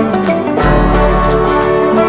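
Background music: acoustic guitar and banjo playing a country-style tune with a steady bass.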